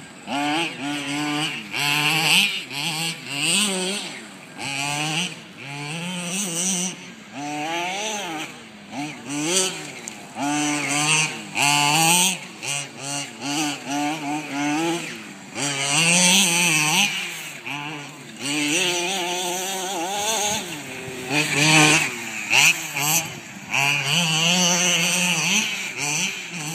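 Small two-stroke engine of a nitro radio-controlled off-road car, revving up and down over and over as it is driven, its pitch rising and falling every second or so with short drops in between.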